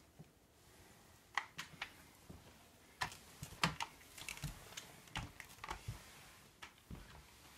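Flat microfiber mop on a hardwood floor, making irregular light clicks and knocks as its head and swivel joint move over the boards.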